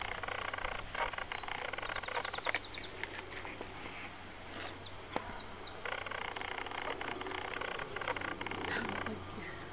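Small songbird singing outdoors: a quick trill of about ten high notes, then a few separate high chirps, over quiet talk.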